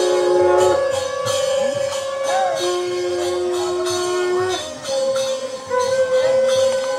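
Devotional kirtan music: jingling metal percussion keeping a steady beat under long held melodic notes. The sound dips briefly about five seconds in.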